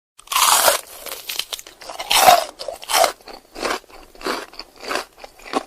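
Sound effect of crunchy food being bitten and chewed: a run of crisp crunches about every two-thirds of a second, the loudest about two seconds in, then softer chews.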